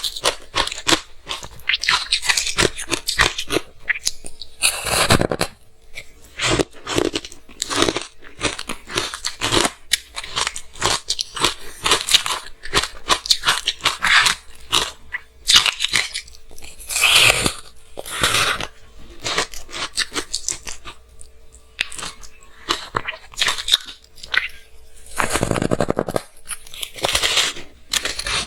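Close-miked crunching and chewing of frozen matcha green tea ice: repeated bites cracking the ice, then dense, irregular crackling as it is chewed, with louder crunches now and then.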